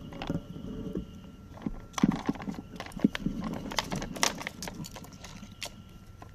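Plastic dog puzzle toy (Nina Ottosson Dog Tornado) clattering as a puppy paws and spins its layers: a quick run of uneven hard clicks and knocks, busiest from about two to five seconds in.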